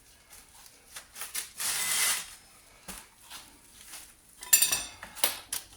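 Metal hand tools being handled: clinks and rattles of sockets and wrenches, with a short scraping rub about two seconds in and a few sharper ringing metallic clinks near the end.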